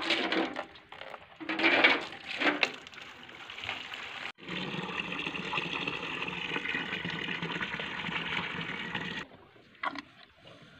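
Pumped water pouring from a plastic hose pipe into a bucket. It comes in uneven gushes at first, then settles into a steady pour for about five seconds, which cuts off suddenly.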